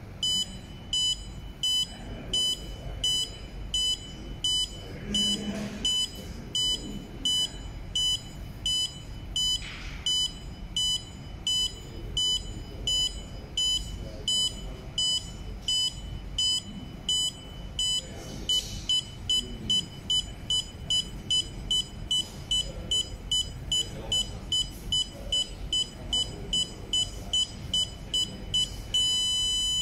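Arduino-driven piezo buzzer of an ultrasonic distance-measuring circuit beeping in a steady rhythm: short, high beeps about twice a second, quickening to about three a second in the second half as the object comes closer. Near the end the beeps become one continuous tone, the signal that the object is within 10 cm.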